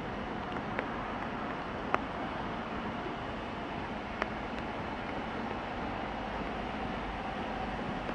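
Distant running sound of an approaching steam locomotive, ex-LMS Black Five 4-6-0 No. 44871, blended with steady wind rush, and broken by a few sharp clicks, the loudest about two and four seconds in.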